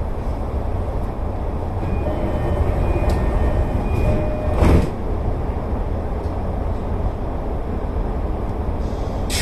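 Commuter electric train running along the line, a steady rumble of wheels on rail. A single short, sharp clatter comes about halfway through.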